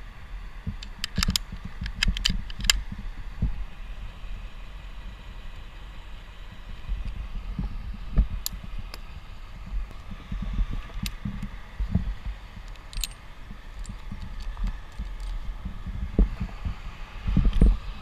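Metal karabiners and rigging hardware clinking in short clusters while a tree climber handles a sling and rigging rope, over a steady low rumble and scattered dull thumps.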